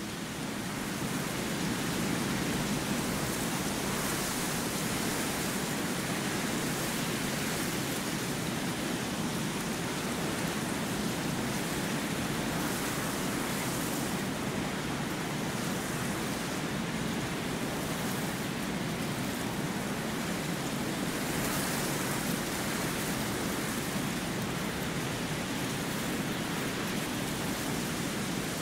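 Steady rushing wind, swelling up over the first couple of seconds and then holding even, with slow gusty swells in the hiss.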